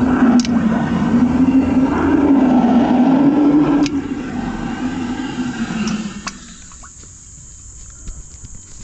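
High-pressure drain jetter running: a rough rushing noise with a wavering low hum. It drops in level about four seconds in and cuts off about six seconds in.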